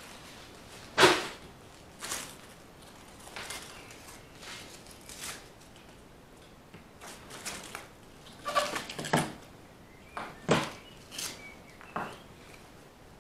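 Irregular clicks and knocks of model railway track pieces and small items being handled on a wooden baseboard, about ten in all, the loudest about a second in and a quick cluster of clatters around nine seconds.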